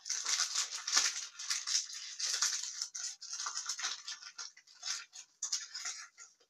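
Thin plastic packaging crinkling and crackling in the hands as a small packet is torn open and unwrapped.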